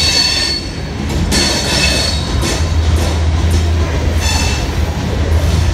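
Coal train hopper cars rolling past with a steady low rumble. A high-pitched wheel squeal rises and fades three times.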